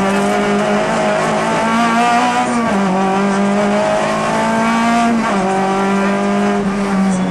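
Rally car engine heard from inside the cockpit, pulling hard under acceleration. The pitch climbs slowly and drops sharply twice, about two and a half and five seconds in, as the driver shifts up a gear.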